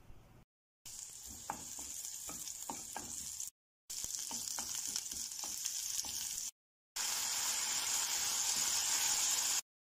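Onions frying in hot oil in a nonstick wok, sizzling steadily while a wooden spatula stirs with scraping ticks. The sound comes in three short cuts with brief dropouts between them. In the last cut the sizzle is at its loudest and most even, with fish pieces in sauce cooking among the onions.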